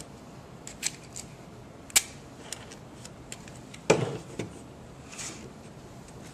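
Handling of a paper model, tape and small tools on a tabletop: a few sharp clicks, a duller knock just before four seconds in, and a short paper rustle about five seconds in.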